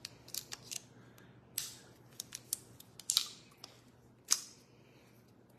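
Scissors snipping and picking at the plastic wrapping on a small glass jar: a scattered string of sharp clicks and short snips, the loudest about four seconds in.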